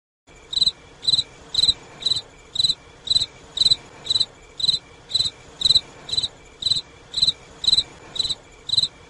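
Cricket chirping in a steady rhythm, about two short high chirps a second, starting abruptly just after the beginning.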